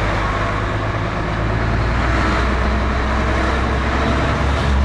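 Truck engine running with a steady low hum under tyre and road noise, heard from inside the cab while driving in city traffic.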